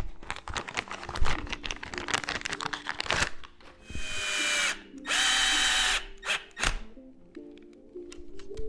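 Cordless power driver spinning in two short runs, about four seconds in and again about a second later, driving screws as a part is fastened back on. Small clicks and knocks of parts being handled come before and after.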